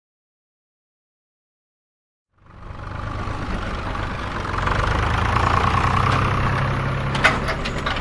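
A motor starting abruptly about two seconds in and running steadily with a low hum, with a few sharp clicks near the end.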